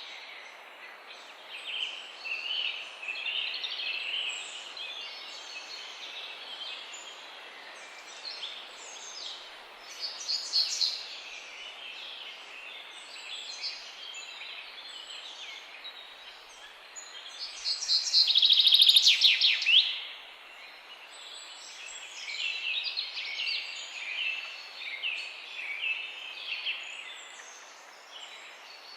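Several songbirds singing together with overlapping calls and chirps over a steady background hiss. About two-thirds of the way through, one bird gives a loud, fast trill.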